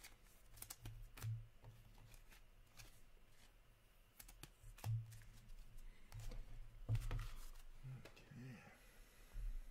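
Trading cards being flipped through and shuffled by hand: a scatter of soft clicks and slides of card against card and plastic holder.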